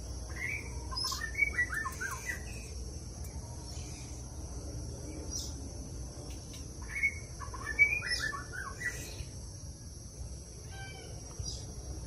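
Budgerigars chirping and chattering in two quick bursts of short notes, one at the start and one about two-thirds of the way in, with a brief run of chirps near the end.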